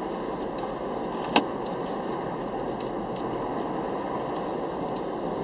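Steady road and tyre noise inside a moving car's cabin on a snowy highway, with one sharp click about a second and a half in and a few faint ticks.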